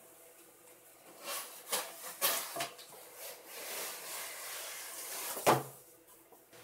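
Corrugated cardboard shipping carton being opened by hand: flaps scraping and rustling, with a few sharp knocks, the loudest about five and a half seconds in.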